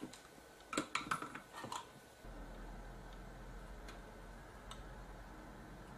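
A quick cluster of small sharp clicks about a second in, as the metal tips of soldering tweezers tap against a surface-mount transistor and the circuit board. About two seconds in, a faint steady low hum sets in.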